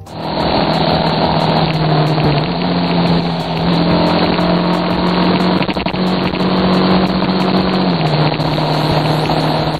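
Motorcycle engine running at a steady cruise on a dirt track, its pitch stepping up slightly about two and a half seconds in and dropping back about eight seconds in.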